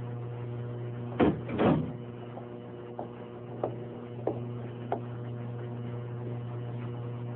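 Two loud wooden knocks about half a second apart, then four fainter clicks spread over the next few seconds, over a steady low hum.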